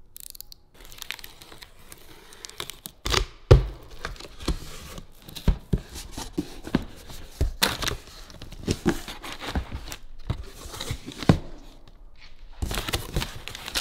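A cardboard shipping box being unpacked: a utility knife cutting through packing tape, cardboard flaps knocking, and crumpled kraft packing paper and bubble wrap crinkling as they are pulled aside. One loud thump comes about three and a half seconds in.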